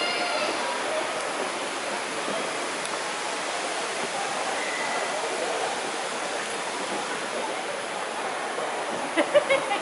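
Steady rushing of falling water from a waterfall, with faint voices mixed in and a few short, louder sounds near the end.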